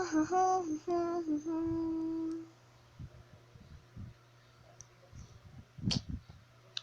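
A young girl humming a short tune of a few notes, the last one held, stopping about two and a half seconds in; after that only a few faint clicks.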